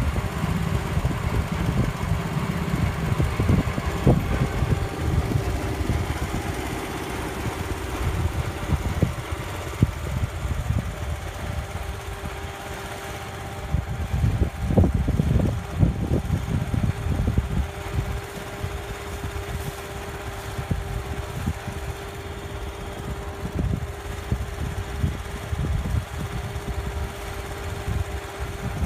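Hydraulic power pack engine running steadily at idle, a constant hum with a held tone, with a few sharp knocks along the way.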